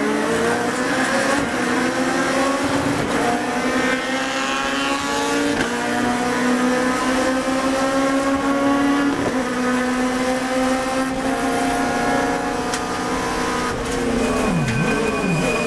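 Toyota Altis race car's four-cylinder engine, heard from inside the cockpit, pulling hard at full throttle from the race start, its pitch climbing through the gears with a brief drop at each upshift. About fourteen seconds in the car brakes and the engine falls into short revving dips as it downshifts for the corner.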